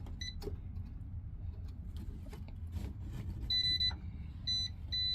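Non-contact voltage tester pen beeping as it is held to a live Romex cable. A high beep chirps once, then from a few seconds in it repeats about twice a second. The beeping signals that the wire is hot.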